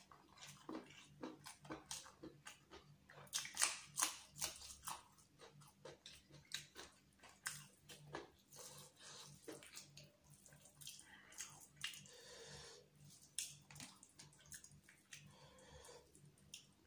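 Close-up eating sounds of chicken biryani eaten by hand: chewing and wet mouth smacks, with fingers squishing through the rice. The sounds come as irregular short clicks, loudest about four seconds in.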